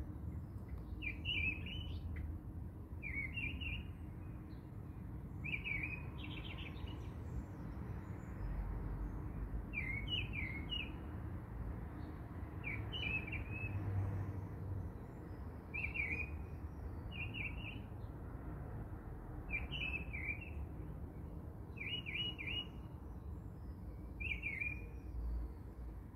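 Small birds chirping: short chirp phrases repeated roughly every two seconds over a steady low rumble.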